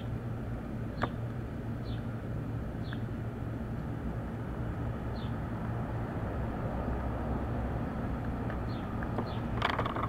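Hook pick and tension wrench working the pin-tumbler cylinder of a Master Lock Lockout series lock, with one faint sharp click about a second in, over a steady low hum. Short high chirps come now and then, and there is a brief rustle near the end.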